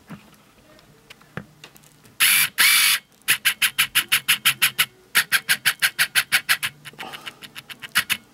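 An intake valve in a Honda B20 cylinder head is being lapped into its seat. The lapping stick is spun back and forth between the palms, so the valve face grinds against the seat through lapping compound. There are two longer rasps about two seconds in, then quick even grinding strokes at about five a second in two runs of nearly two seconds each, thinning out near the end.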